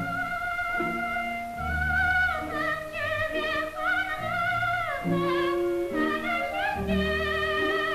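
Lyric-coloratura soprano singing a high sustained line with a wide vibrato, breaking into quick runs in the middle, over an orchestral accompaniment with low bass notes coming and going; an archival mid-20th-century opera recording.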